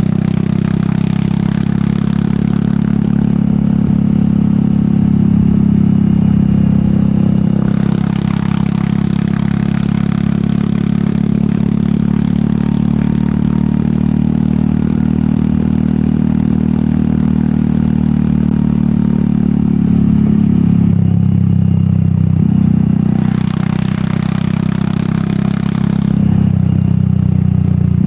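Royal Enfield Meteor 350's 349 cc single-cylinder engine running through an aftermarket sport exhaust while the bike is ridden at a steady pace. The engine note drops and shifts pitch about three-quarters of the way in.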